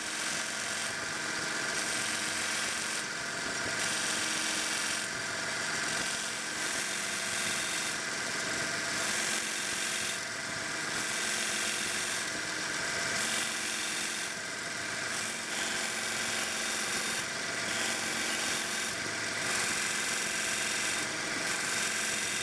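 1x30 belt grinder running while the steel shaft of an awl is pressed against a conditioning belt: a steady motor whine under belt hiss that swells and dips about every two seconds as the piece is worked.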